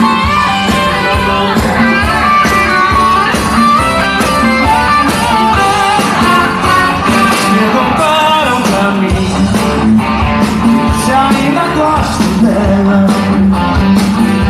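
Live band music: a singer with guitar accompaniment and a steady drum beat, in a rock-and-roll style.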